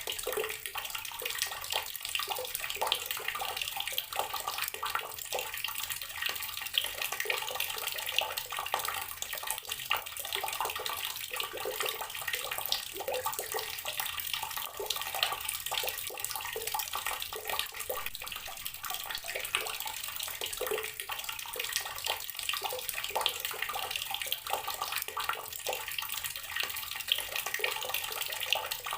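Water running from a tap and splashing into a filled container, a steady stream of small splashes and bubbling.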